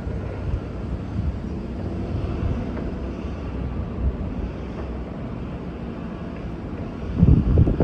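Low steady vehicle rumble with wind noise on the microphone, and a stronger gust buffeting the microphone near the end.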